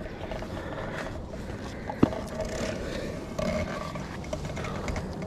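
Rough scraping and rustling while a heavy magnet-fishing catch is hauled by hand, with one sharp knock about two seconds in.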